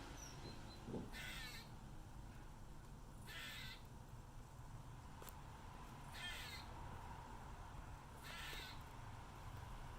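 A squirrel giving territorial calls: four short calls, each about half a second long, spaced two to three seconds apart.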